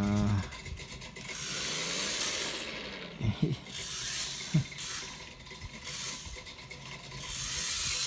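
Shell Motorsport Collection BMW M4 toy RC car driving across a tile floor, its small electric motor and gears whirring in two surges, about a second in and again near the end, with two short chirps in between.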